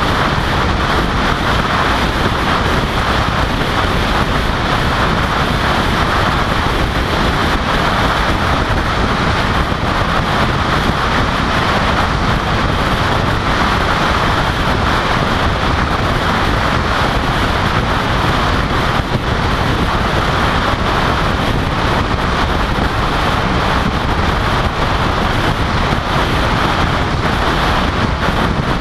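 Steady rush of wind and tyre noise from a car driving at highway speed, picked up by a camera mounted on the outside of the car by the front fender, with wind blowing on the microphone.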